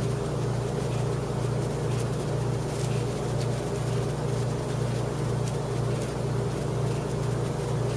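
A steady low hum with a slight regular pulse, over which come a few faint sharp ticks: the little clicks of a scored glass bottle cracking along its score line as it is heated over a candle flame.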